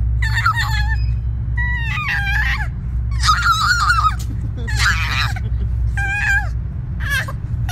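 Baby squealing with delight in about six short, high-pitched calls about a second apart, some wavering as a hand pats over its mouth.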